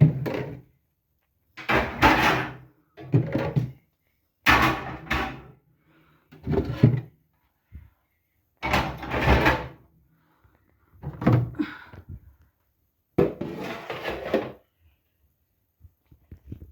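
Refrigerator drawers and shelves being pulled out and handled: a series of about eight separate knocks and clatters, each about a second long, with short pauses between them.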